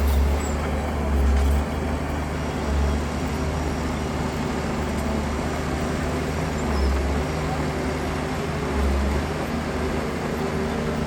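Heavy earthmoving machine's diesel engine running steadily with a deep hum. It swells briefly several times: near the start, about a second in, near three seconds, around seven seconds and around nine seconds.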